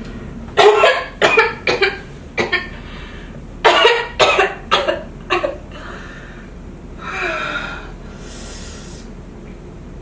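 A woman coughing hard in two fits of about four short coughs each, then heavy breathing; the coughing is staged, part of faking coughing up blood.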